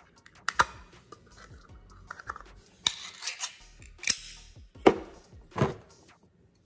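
A pull-tab can of wet cat food being opened by hand: a series of sharp metallic clicks and scraping as the tab is lifted and the lid is torn off.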